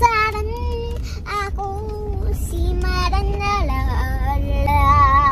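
A young girl singing without words, holding long notes that step up and down in pitch and waver near the end, over the low rumble of the car she rides in.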